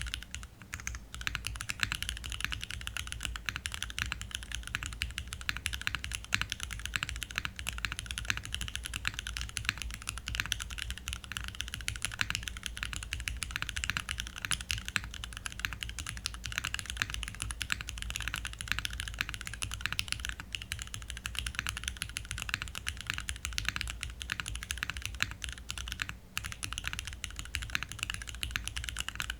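Continuous fast typing on a 60% custom mechanical keyboard: an O-ring-mounted Tofu60 Redux with an aluminium plate, Cherry MX2A Black linear switches and GMK ABS doubleshot keycaps, no foam. Dense, overlapping keystroke clacks, with one brief pause late on.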